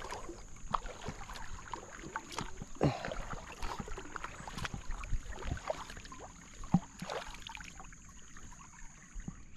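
Kayak paddle strokes: the double-bladed paddle dipping and pulling through river water on alternate sides, with irregular splashes and drips.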